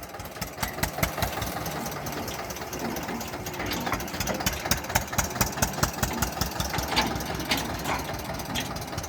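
Tractor's diesel engine running in gear under throttle, a fast, even chugging knock over a low drone.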